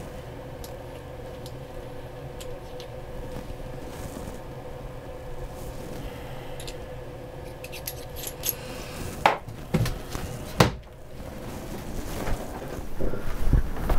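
A few faint clinks of small glass bottles and jars on a wooden medicine cabinet shelf, then two sharp knocks, the second and louder one as the mirrored cabinet door is pushed shut. A steady faint hum runs underneath.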